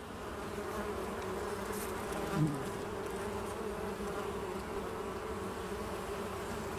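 Steady buzzing of a bee sound effect, swelling briefly about two and a half seconds in.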